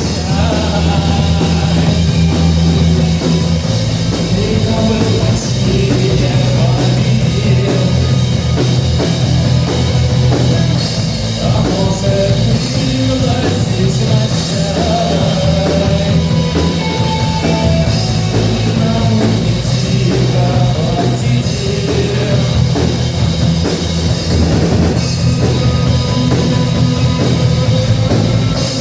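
Rock song with drums, bass, guitar and singing.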